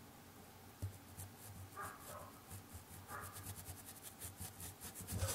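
Thin watercolour brush dabbing quick, repeated light strokes on paper. A dog barks faintly in the distance twice, about two and three seconds in.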